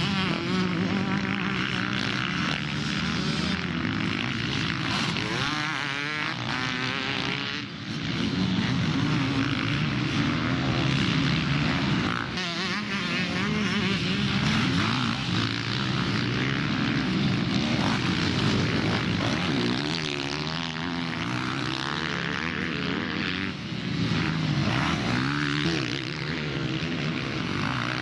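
Several motocross bikes' engines racing, their pitch rising and falling over and over as the riders open and shut the throttle and change gear, many engines overlapping at once.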